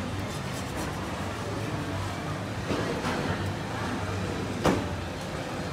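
Metal spatula scraping and knocking on a flat griddle plate as khanom Tokyo pancakes are rolled, over a steady background of street traffic noise. There are a few sharp knocks, the loudest about three-quarters of the way in.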